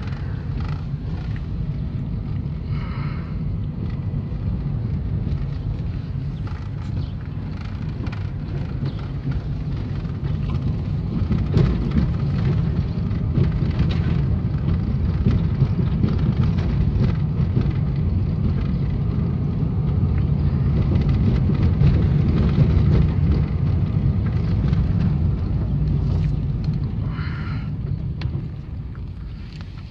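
Inside a car's cabin while it drives over a rough, overgrown track surface: a steady low rumble from the car and its tyres. It grows louder about ten seconds in and fades near the end.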